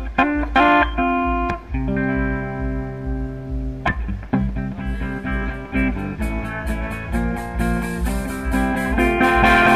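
Background music: a guitar-led instrumental over a steady low beat, with a fast high ticking rhythm joining about halfway through.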